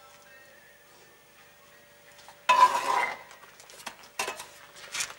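Steel bricklaying trowel scraping and scooping mortar in a plastic tub and against clay bricks. There is one loud scrape about halfway through, then several short scrapes and clinks.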